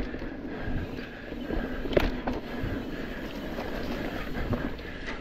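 Mountain bike riding fast down a dirt singletrack: tyres rolling over dirt and roots with the bike rattling over the bumps, and a sharp knock about two seconds in.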